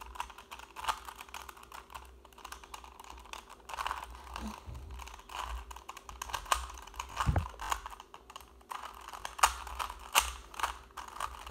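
Rubik's cube being twisted quickly by hand, its plastic layers clicking and clacking in irregular bursts as one face is solved.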